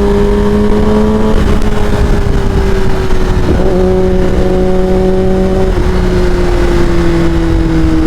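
Kawasaki ZX-10R inline-four with an Akrapovic full-system exhaust running under way at a steady engine speed, its note sinking slowly in pitch, over heavy wind rumble on the rider's microphone.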